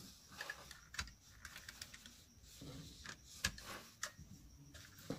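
Small electric hand iron being pressed and moved over folded cotton fabric: faint scattered clicks and taps with soft cloth rustling, the sharpest tick about three and a half seconds in.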